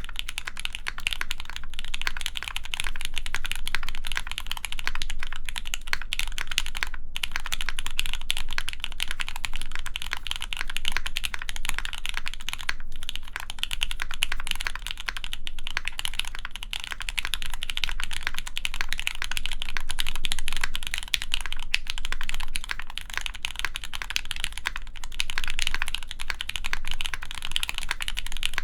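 Continuous fast typing on a mechanical keyboard with lubed Gateron Mizu Mink linear switches, an aluminium plate and GMK keycaps, a dense run of key clacks with a few brief pauses.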